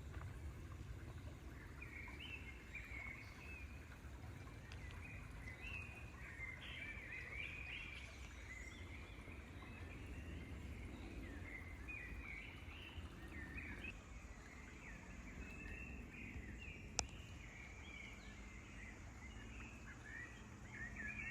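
Faint, continuous chatter of small birds chirping over a low, steady outdoor rumble, with a single sharp click about seventeen seconds in.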